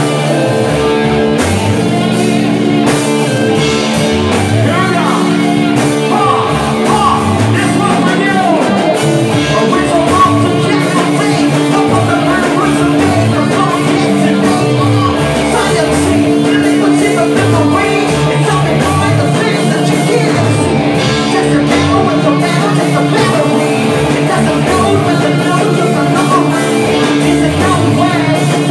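Live rock band playing: a male singer into a handheld microphone over electric guitar and drums, with the singing coming in a few seconds in.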